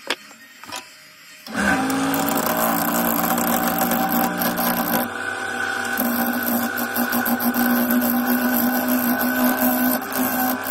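A few light clicks, then a wood lathe switches on about a second and a half in, its motor running steadily with a hum. From about six seconds in a turning gouge cuts the spinning yew log, adding a rough hiss with rapid knocks as it rides over the bark and out-of-round surface.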